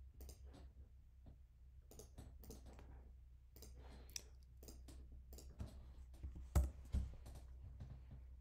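Faint, scattered clicks and taps of computer keys and a trackpad or mouse, with two louder knocks about half a second apart a little after six seconds in, over a low steady hum.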